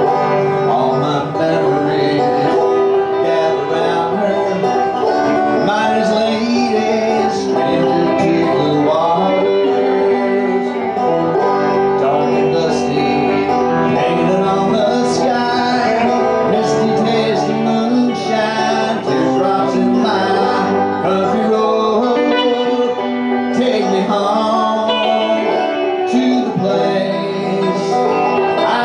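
Banjo and electric guitar playing bluegrass live, with fast picked notes.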